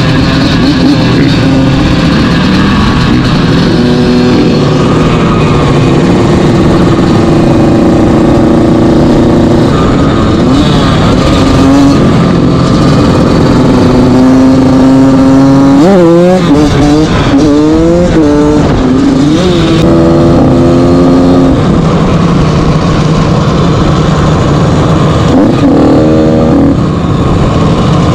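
Dirt bike engine running close on the microphone, with other dirt bikes and quads running around it. About sixteen seconds in, the engine revs rise and fall several times in quick succession.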